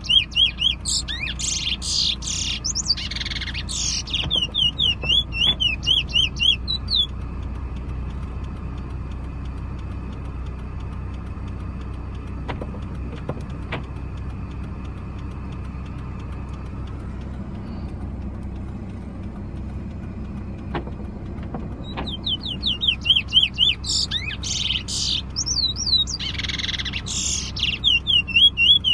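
A caged bullfinch singing two several-second bursts of quick, repeated high chirping notes, with a long gap between them, over a steady low vehicle rumble.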